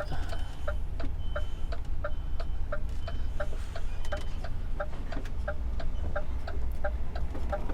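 Turn-signal relay ticking steadily in a lorry cab, about three ticks a second, over the low, steady rumble of the diesel engine.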